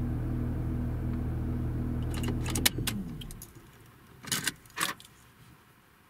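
Volkswagen Touareg 3.0 TDI V6 diesel idling steadily, then shut off about two and a half seconds in after a few clicks and one sharp click, the hum winding down and stopping. Two short rattles follow about a second later.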